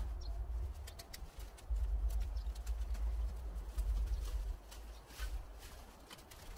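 Scattered crackles and rustles of cut shrub branches and leaves being handled and pushed down into a plastic garden waste bag, over a low rumble that comes and goes.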